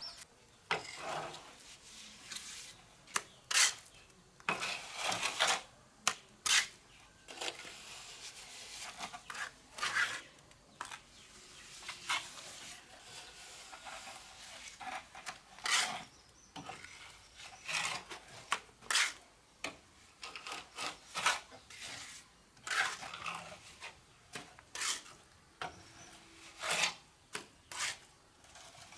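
Irregular scraping strokes of a mason's trowel working cement mortar against brick, each lasting well under a second.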